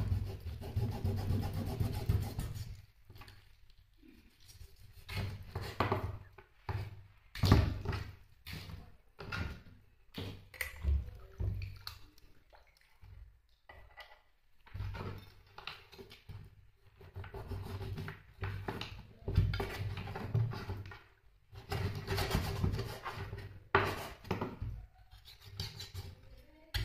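Irregular knocks, thuds and rubbing sounds of objects being handled, with short quiet gaps between them.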